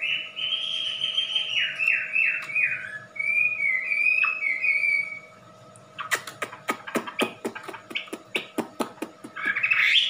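Caged wambi songbird singing loud whistled phrases: a long high note, a few quick falling notes, then a warbling trill. After a short pause comes a fast run of sharp clicking notes, about four a second, and the whistling song starts again near the end.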